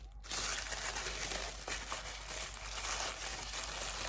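Wrapping crinkling and rustling as hands unwrap items from a subscription box, with a couple of small ticks.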